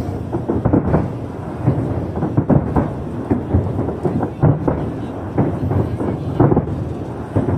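Aerial fireworks bursting in rapid, irregular succession: many overlapping deep booms, several a second, over a continuous rumble.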